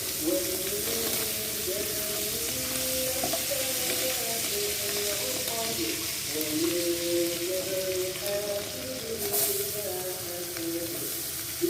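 Food frying in hot oil in a pan, a steady sizzle, with background music playing a melody over it.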